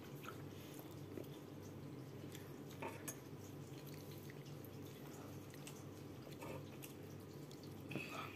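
Faint wet chewing and mouth sounds of a person eating a chicken wrap, with a few small clicks over a steady low hum.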